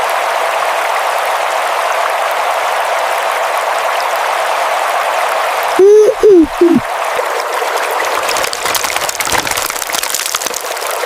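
Steady running water of a small stream. About six seconds in, three loud, short pitched tones that each rise and fall. From about eight seconds on, scattered crackling clicks.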